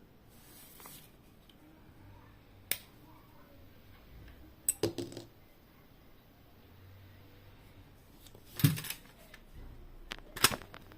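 Scattered sharp plastic and metal clicks and knocks from a car cassette stereo being handled: a single click, a quick cluster of clicks about halfway, a louder knock with a low thump, and a few more clicks near the end.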